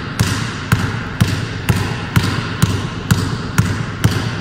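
Basketball dribbled on a hardwood gym floor in a low, one-handed in-and-out dribble with the left hand, bouncing steadily about twice a second.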